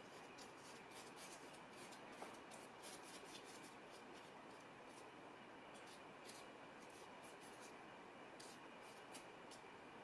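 Faint scratchy strokes of a long-bristled hog-hair flat brush laying oil paint onto paper, coming in runs of quick strokes with short pauses, over a steady faint hiss.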